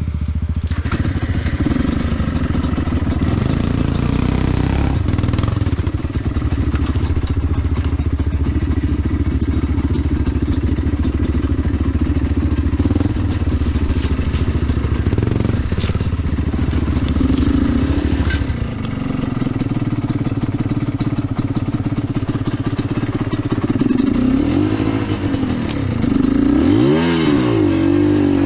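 Enduro dirt bike engine running steadily under load on a rough trail, then revving up and down several times near the end, with a few knocks from the bike.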